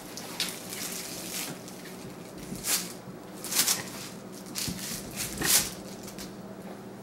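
Clear plastic packaging rustling and crinkling in a few short swishes, the loudest a little past halfway, over a faint steady hum.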